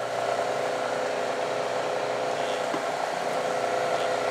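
Milling machine spindle running steadily with a center drill in the chuck: an even hum holding a few steady tones.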